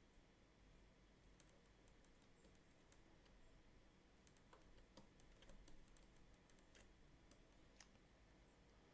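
Near silence: room tone with faint, scattered clicks of a computer keyboard, a little busier from about four seconds in.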